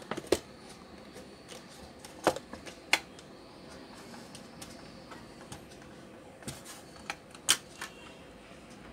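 Plastic housing of a MINISO A18 wireless speaker being handled and shifted on a workbench: a handful of sharp, separate clicks and knocks, the loudest near the start, around three seconds in and near the end.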